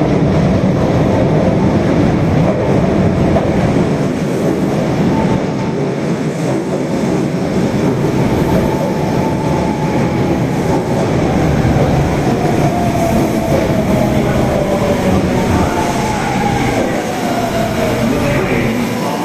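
Osaka Metro Tanimachi Line 22-series subway train pulling into a station: steady wheel-and-rail rumble with clickety-clack, and a motor whine falling slowly in pitch through the middle as the train slows down.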